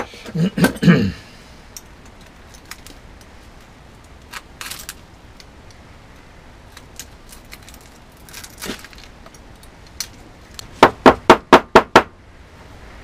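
Pliers working broken glass shards out of the rubber channel of a metal aero-screen frame: sparse small clinks and scrapes of glass and metal. Near the end comes a quick run of about seven sharp knocks.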